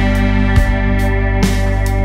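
Background music: sustained chords with a steady beat, a hit a little under once a second.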